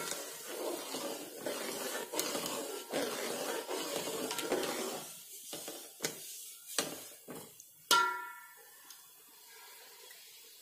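A spoon stirring sugar and water in a metal pot, scraping and clicking against the pot while the sugar dissolves for syrup. The stirring stops about halfway through, followed by a few sharp knocks. The last knock is the loudest and rings like struck metal.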